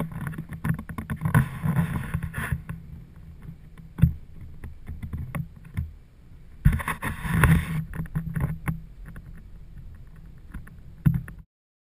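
Wind buffeting and handling noise on a GoPro Hero2 carried on a hand-held PVC pole mount: an uneven low rumble with scattered knocks and rubbing, and a louder rushing gust about seven seconds in. It stops abruptly near the end.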